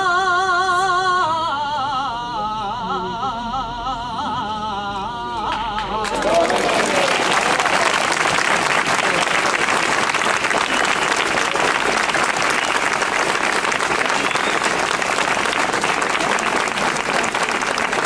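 A man sings the end of a saeta solo, long wavering held notes with melismatic turns, stopping about five seconds in. The crowd then breaks into steady applause.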